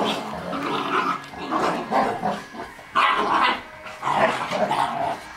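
Spinone Italiano dogs barking in play, a run of irregular barks with some growling, loudest about three seconds in and again a second later.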